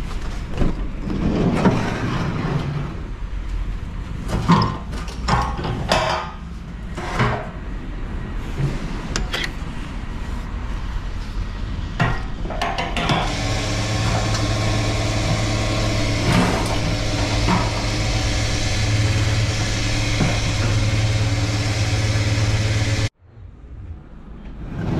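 A series of knocks and clatter, then about 13 s in a petrol station fuel pump starts up, a steady hum with the rush of fuel being dispensed. It cuts off suddenly about two seconds before the end.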